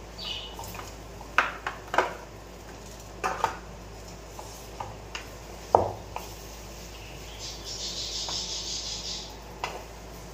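Plastic lunch box and kitchenware being handled: a scatter of sharp clicks and knocks, the loudest about six seconds in, then about two seconds of rustling and scraping.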